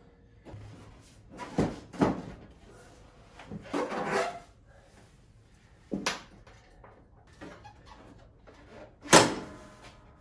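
Several knocks and clunks from handling the tractor's hood and engine bay, ending with a loud slam about nine seconds in as the Kubota compact tractor's hood is shut.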